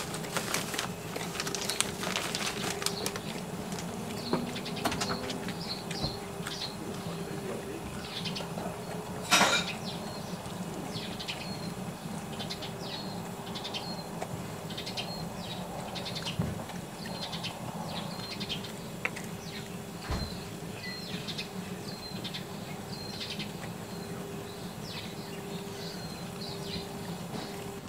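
A dog eating raw meat from a stainless steel bowl: chewing clicks, mostly in the first few seconds, and one sharp knock about nine seconds in. Small birds chirp over and over throughout, with a low steady hum underneath.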